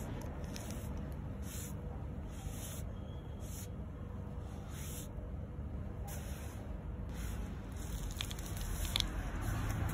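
Soft rustling hiss of a hand stroking a cat's fur, in repeated strokes about once a second, over a low steady rumble.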